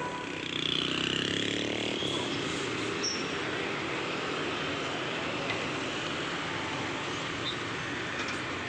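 Road traffic noise. One vehicle passes close about half a second in, followed by a steady traffic hum.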